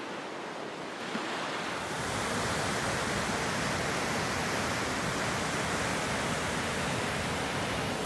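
Fast-flowing waterfall rushing over rocks: a steady hiss of water that grows louder and fuller about two seconds in.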